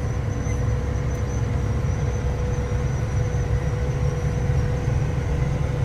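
Tractor engine running steadily, heard from inside the cab as a low, even drone with a thin steady whine on top.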